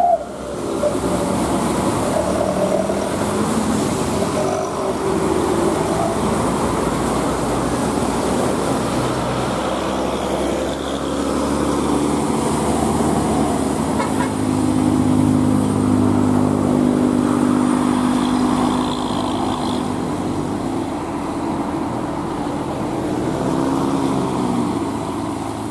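Road traffic on a steep, wet hill road: a heavy container truck's diesel engine drones as it pulls slowly uphill, while cars and a motorcycle pass. The engine note is steady and loudest about halfway through.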